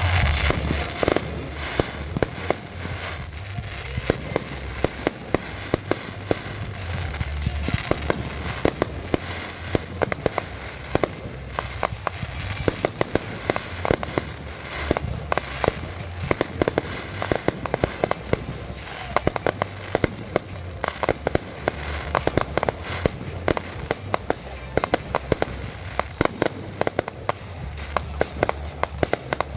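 Fireworks going off: a dense, irregular run of sharp cracks and pops, several a second, over a steady low rumble.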